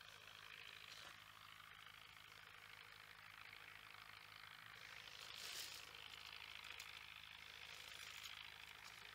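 Near silence: a faint steady hiss with a low hum, swelling slightly about five and a half seconds in.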